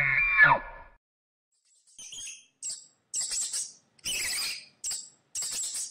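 A drawn-out pitched animal call that ends within the first second. After a brief silence comes a run of about seven short, high-pitched squeaks or chirps with small gaps between them.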